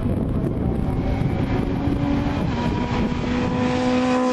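Small racing car's engine running hard at high revs as it climbs past, its note holding steady and edging slightly higher.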